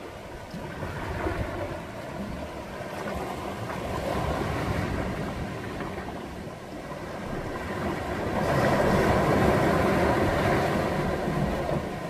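Waves surging onto beach rocks, washing in and out in swells, with the biggest surge about eight seconds in lasting a few seconds.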